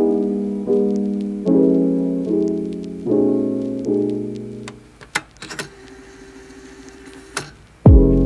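Background music: soft piano chords struck about every 0.8 seconds, dropping away about five seconds in to a quiet stretch with a few sharp clicks, then a loud low thump near the end as the music starts again.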